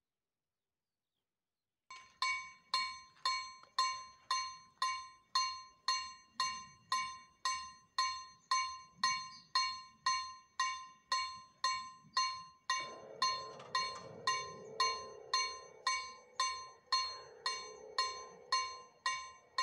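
Railway level-crossing warning bell ringing in a steady rhythm of about two strikes a second, starting about two seconds in. About two-thirds of the way through, a steady hum joins underneath the bell.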